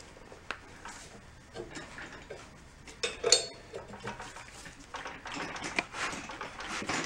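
Metal tools clinking and knocking against a flywheel puller as it is set up and tightened, with one loud ringing metal clank about three seconds in and quicker clicking near the end.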